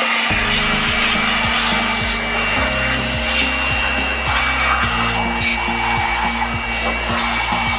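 NANKAI handheld electric blower running steadily, its air stream blowing dust out of an open power amplifier's chassis.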